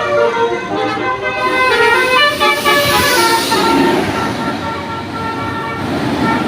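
Indonesian bus 'telolet' Basuri multi-tone horn playing a run of stepped musical notes. A broad rush of noise swells around the middle, and fainter horn tones continue after it.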